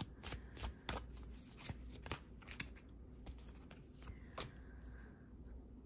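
Tarot cards being shuffled in the hands: a quiet run of soft card clicks and slides, dense for about two and a half seconds, then thinning to a few scattered clicks.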